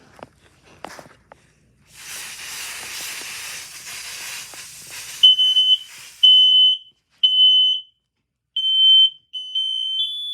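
A few knocks, then a steady hiss for about three seconds. A smoke alarm then goes off with loud, high-pitched beeps in short groups. Near the end a second alarm joins in at a slightly higher pitch, out of step with the first.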